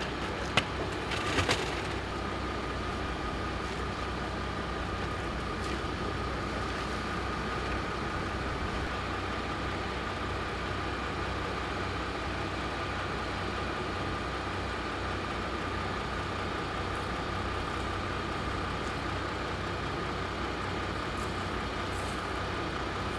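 A heavy truck engine idling steadily with a steady high whine over it, typical of a fire appliance left running. A couple of sharp knocks come in the first two seconds.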